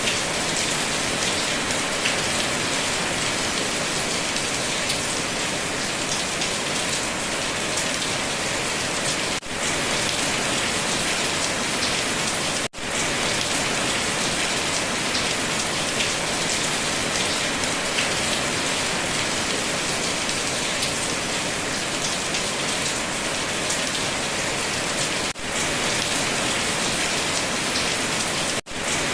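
Steady rain falling, an even hiss of many drops, which cuts out for an instant four times.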